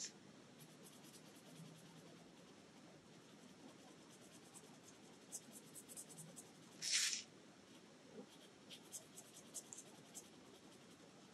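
Black fine-line pen tip scratching faintly on a paper tile in short irregular strokes as small triangles are filled in with ink, with one brief louder rasp about seven seconds in.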